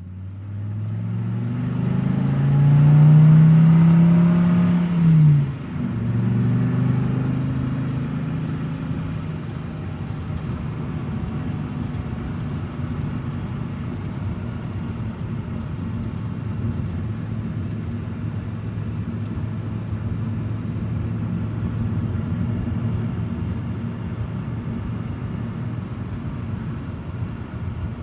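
Car engine and car driving slowly. The engine note rises over the first few seconds, drops sharply about five seconds in, then holds a steady low hum.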